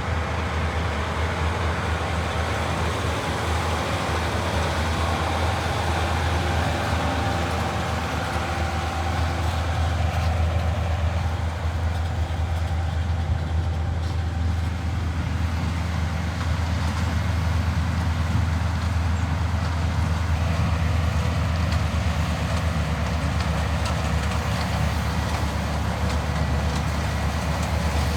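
Heavy farm harvest machinery running steadily in the field: a continuous low engine hum with a haze of mechanical noise above it.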